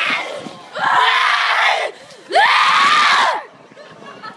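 Two loud, drawn-out screams from a person, each about a second long, rising then falling in pitch.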